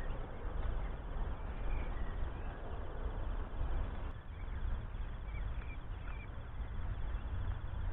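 Outdoor ambience of wind rumbling on the microphone, with a few short bird chirps over it.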